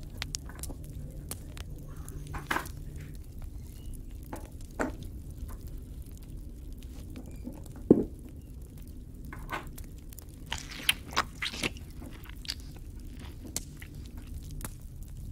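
Small painted clay miniatures clicking and tapping against each other and the tabletop as they are picked up and set down, with one sharper knock about eight seconds in and a few quick taps a few seconds later.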